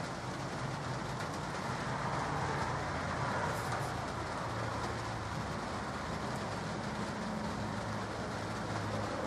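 Light rain falling steadily as an even hiss, with a low steady hum underneath.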